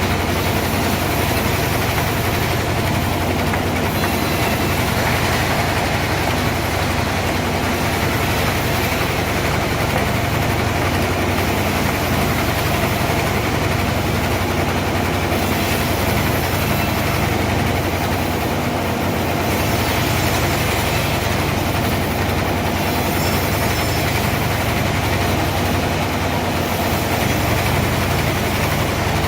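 Sawmill machinery running steadily, giving a continuous low hum over an even mechanical noise.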